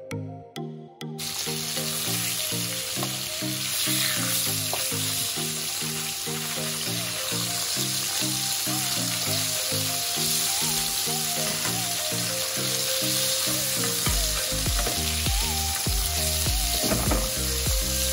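Salmon fillets frying in oil in a non-stick pan: a steady sizzle that starts about a second in and keeps going.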